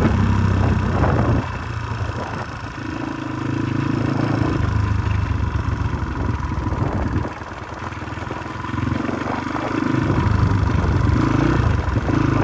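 Motorcycle engine running while being ridden, its note swelling and easing off a few times as the throttle opens and closes.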